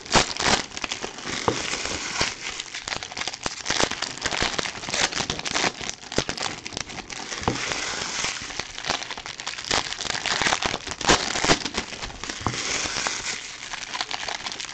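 Foil wrappers of Bowman baseball card jumbo packs crinkling steadily as the packs are handled and opened, with many small clicks from trading cards being flicked and sorted into stacks.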